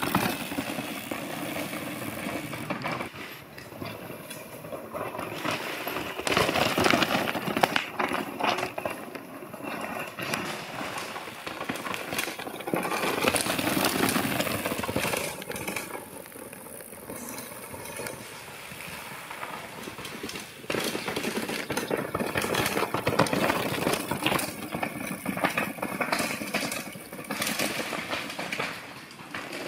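Mountain bikes descending a rocky trail: tyres crunching and skittering over loose stones, with the frame, chain and suspension clattering. The noise swells and eases several times as the trail gets rougher and smoother.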